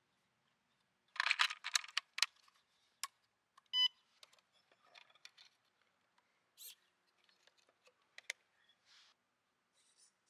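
Sharp plastic clicks and rattles from handling the 1:24 FMS FCX24 Unimog 421 RC truck's hood and body, then one short electronic beep about four seconds in, typical of the truck's electronics powering on. Scattered small clicks follow.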